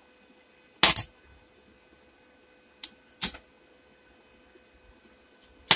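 Inverter arc welder's electrode touched to a steel block, striking brief arcs: four short, sharp crackling bursts, the loudest about a second in and at the very end, with a faint steady hum between them. The repaired welder is striking an arc.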